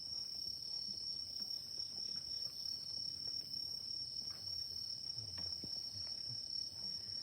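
Crickets chirping in a steady high-pitched trill, with a few faint clicks scattered through it.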